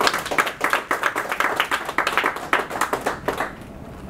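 Small audience applauding, a dense patter of hand claps that dies away about three and a half seconds in.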